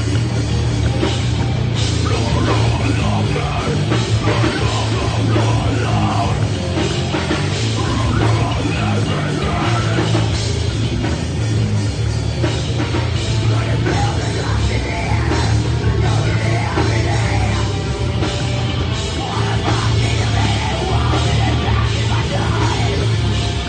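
A heavy metal band playing loud and without a break through a live set: drum kit, bass and guitar, with a heavy low end.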